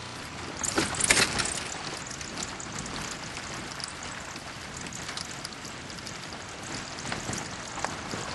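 Vehicle driving over a rough gravel track: steady road and tyre noise with small scattered crackles, and a louder jolt about a second in.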